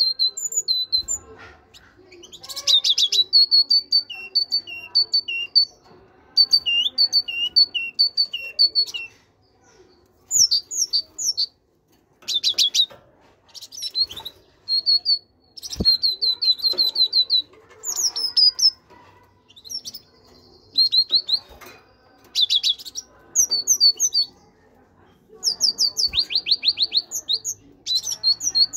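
Great tit singing: strings of repeated high two-note "tea-cher" phrases, alternating with bursts of rapid down-slurred notes, in phrases broken by short pauses.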